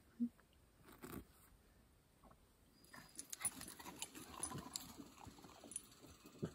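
Faint dog sounds, then light, irregular scuffling and small clicks of a dog's paws and a person's footsteps on bare dirt. The first few seconds are nearly silent.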